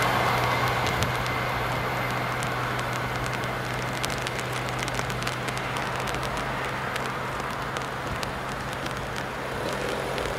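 A steady low hum as the level-crossing barrier arms are raised, stopping near the end when they reach the top. Under it is the fading noise of a train that has just passed, with scattered faint clicks and crackles.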